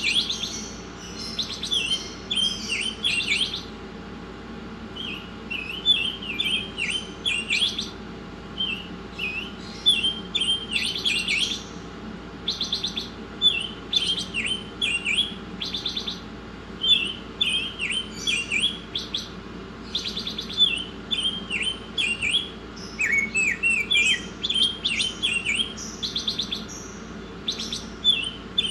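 A caged songbird singing vigorously and without pause, in short repeated phrases of sharp chirps and quick trills every second or two, over a faint steady low hum.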